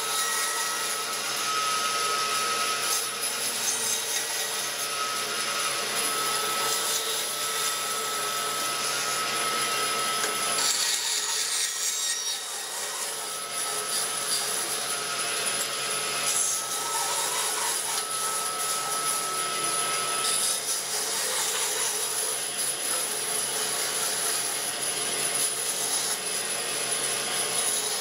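Band saw running and cutting through a wooden block, the blade's steady whir mixed with the rasp of wood being sawn, with a brief lull about twelve seconds in between cuts.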